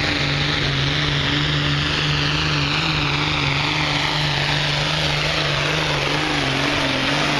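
Modified diesel pulling tractor at full throttle dragging a sled, a loud steady engine note with a high whine that slowly falls in pitch as the tractor comes down the track and passes close by.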